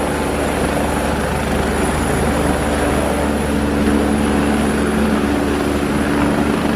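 Steady helicopter rotor and engine sound, loud and unchanging.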